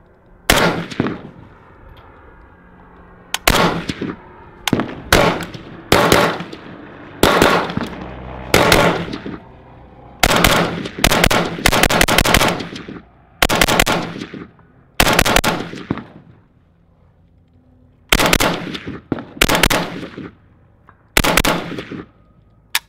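WBP Fox AK-pattern rifle in 7.62x39 firing semi-automatic, about two dozen loud shots at an uneven pace with some quick runs, each shot echoing briefly. These are the first rounds through the new rifle as a function test, and it keeps cycling.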